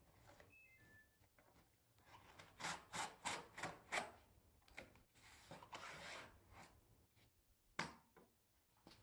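Corrugated cardboard of a flat-pack box being worked open by gloved hands: a quick run of about six scraping rubs, then a longer rasping tear as the glued corner seam pulls apart, and one sharp tap near the end.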